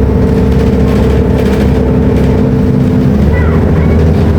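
Volvo B340M bus's Euro V diesel engine running under way. Its steady note drops to a lower pitch about three seconds in.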